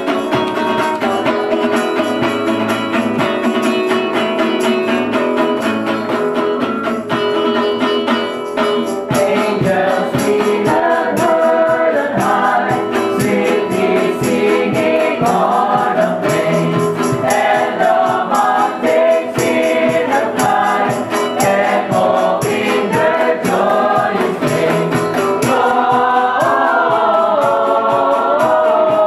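A mixed group of carolers singing a Christmas carol together, over a steady beat.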